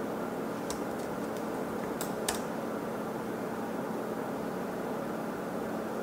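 A few laptop keyboard keystrokes in the first half, clicking over a steady hiss of background white noise.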